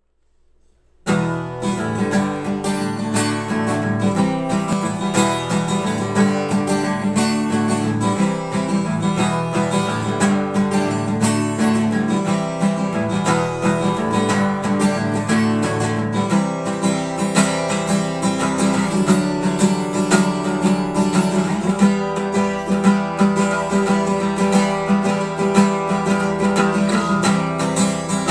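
Acoustic guitar being played, starting about a second in, with a full, ringing sound that in parts sounds a little like a 12-string.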